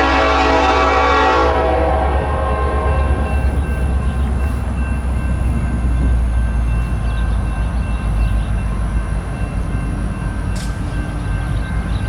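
A Union Pacific freight train's air horn sounds a held chord that stops about a second and a half in, then the train's locomotives and cars keep up a loud, steady low rumble as they pass.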